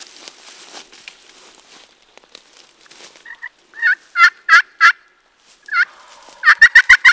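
Turkey calls at close range: four loud, warbling notes about a third of a second apart, a single note after a pause, then a faster run of notes near the end. Soft rustling comes before them.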